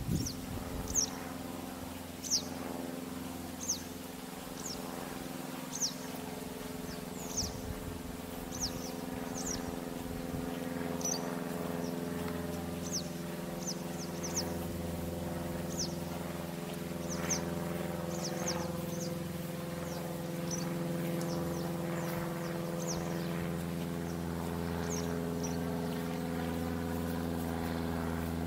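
Small birds chirping, with short high calls repeating every second or so, over a steady low engine drone that grows gradually louder toward the end.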